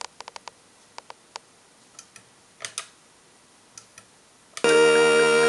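Commodore 64 keyboard keys clicking, single presses every half second or so, as the disk menu is worked. Near the end a loud synthesized SID-chip chord cuts in as a demo's music starts.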